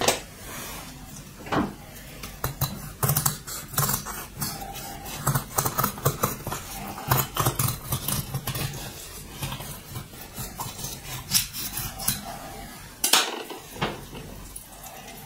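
Kitchen knife filleting a whole cold-smoked trout on a wooden cutting board: irregular clicks and scrapes of the blade, with a few louder knocks.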